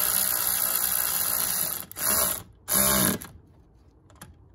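Ratchet wrench spun quickly on a 10 mm nut at a car battery terminal clamp, giving a fast, continuous clicking buzz. It stops about two seconds in, then comes in two short bursts before going quiet.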